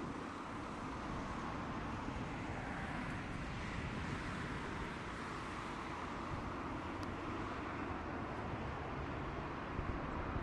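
Twin turbofan engines of an Airbus A330-200 airliner at takeoff thrust, a steady jet noise as it rolls, lifts off and climbs out.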